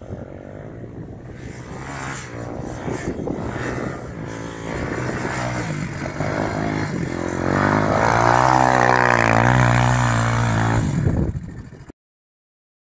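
Small youth ATV's engine running as it rides over sand, growing louder and rising and falling in pitch with the throttle; the sound cuts off suddenly near the end.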